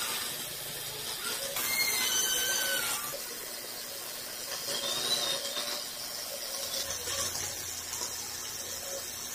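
Steady high hiss from a CNC cutting machine at work, with a few faint squealing tones that slide in pitch.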